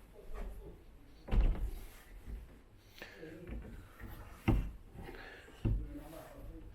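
Three dull thunks with light clicks as latches and a hatch on a small bowrider boat are worked, a few seconds apart.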